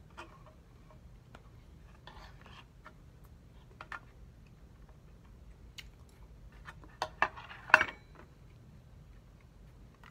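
Scattered light clicks and clinks of eating utensils against a dish while someone eats, with a short cluster of louder, sharper clicks about three quarters of the way through.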